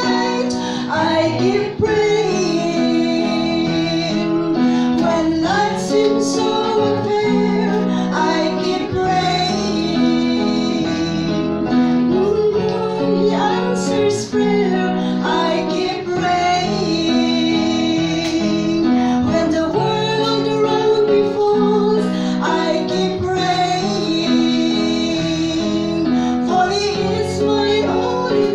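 A live Christian song: a woman singing into a microphone, accompanied by a Korg electronic keyboard and a guitar.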